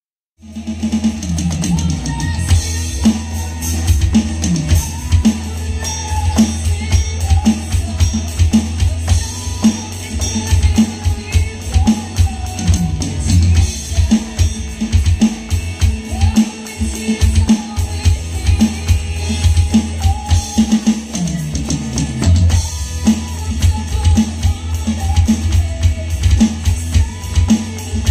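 Millenium MPS 750X Pro electronic drum kit played in a steady beat, its module's kick, snare and cymbal sounds heard along with a backing song with bass and guitar. The playing starts right at the beginning after a moment of silence.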